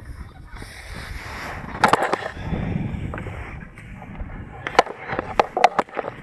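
Pulk sled being hauled over snow, its runners scraping and crunching, with sharp knocks from the rigid tow poles: a couple about two seconds in and several in quick succession near the end.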